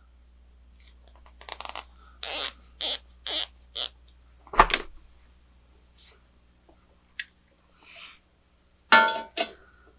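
Hands handling the small metal parts of a Tial external wastegate and a stainless steel exhaust header: a run of short scraping sounds, a sharp clink a little before halfway, and a brief ringing metal contact near the end as the wastegate is set against the header flange.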